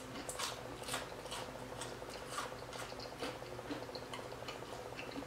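Soft, irregular crunching and chewing of crispy double-fried waffle fries, a few small crunches a second.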